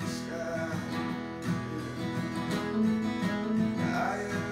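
Two acoustic guitars strummed and picked together, with a man's voice singing briefly near the end.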